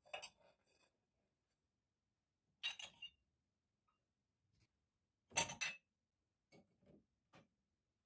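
Glassware clinking against the wire rack of a dishwasher and against other glasses as glasses and a glass bowl are lifted out of the upper rack. A few separate clinks, the loudest a little after five seconds in, then several fainter taps.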